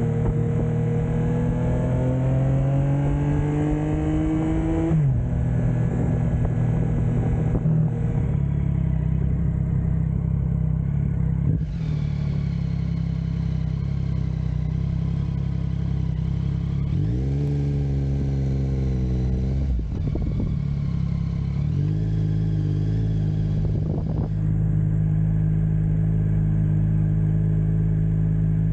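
Yamaha MT-09 Tracer's three-cylinder engine under way at highway speed, rising in pitch as it accelerates for the first few seconds, then dropping sharply at a gear change about five seconds in. It then runs fairly steadily, with further shifts and pickups around the middle.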